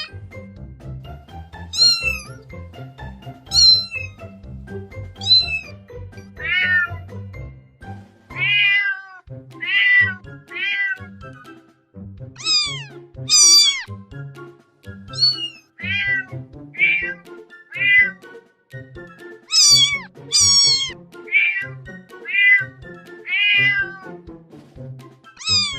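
Domestic cat meowing over and over, about twenty short calls that each drop in pitch, one every second or so, some of them high and thin. Background music runs underneath.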